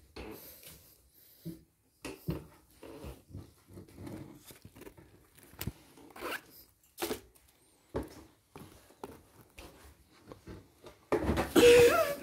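Clothes rustling, with scattered clicks and knocks, as garments are handled and pulled from a wardrobe shelf. About 11 seconds in, a loud high voice cries out.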